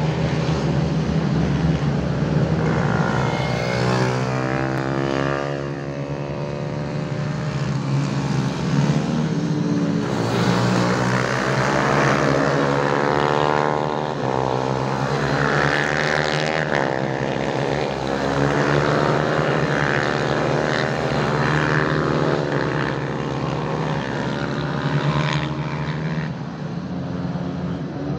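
Several pit bikes racing at once, their small engines revving hard, the pitch climbing and dropping again and again as the riders accelerate, shift and brake through the corners.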